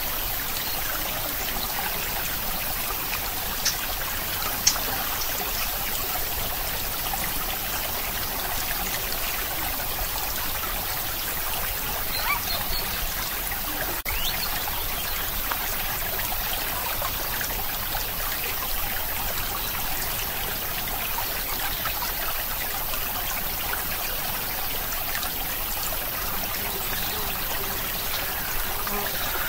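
Steady running-water noise, like a trickling stream, with two brief clicks about four seconds in.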